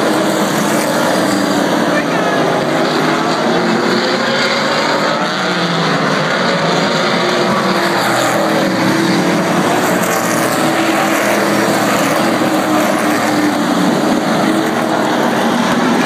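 A pack of winged sprint cars racing, their engines loud and unbroken, with pitches that glide up and down as the cars lap and pass by.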